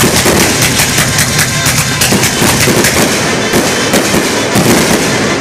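Aerial fireworks bursting: a dense, continuous run of rapid pops and crackles, several a second.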